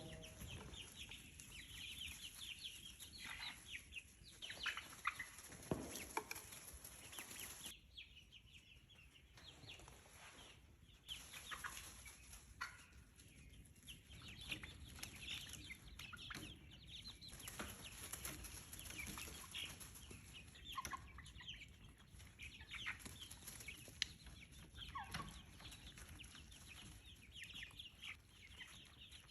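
A brood of young chicks peeping, with many short, high chirps, often falling in pitch, overlapping throughout at a faint level.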